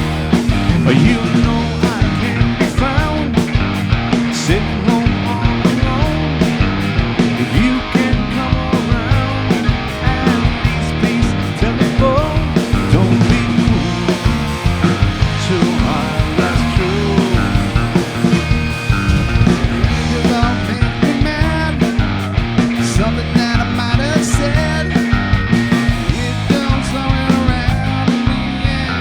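Rock band playing live with electric guitars, bass and drums, a loud steady beat and no singing.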